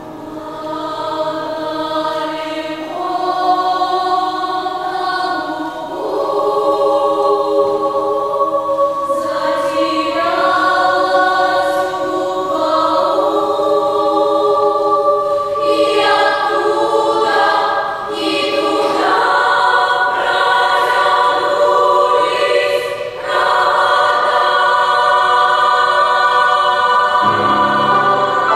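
Children's choir singing in several parts, holding long notes in chords, with a few short breaks between phrases.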